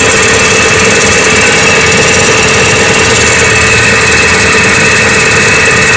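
Hyundai Atoz four-cylinder engine idling after a cold start, with a loud, steady tek-tek ticking from the belt end of the engine. The owner thinks it could be a dry fan belt, or the timing belt or a worn timing-belt tensioner bearing or pulley.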